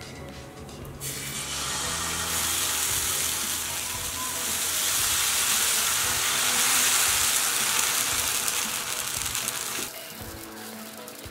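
Dosa batter sizzling on a hot greased tava as it is ladled on and spread. The hiss starts about a second in and cuts off suddenly near the end, over soft background music.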